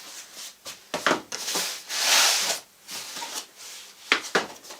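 Cardboard boxes being handled and spread out: a few knocks as boxes are set down, and a louder scraping rustle of cardboard sliding about two seconds in.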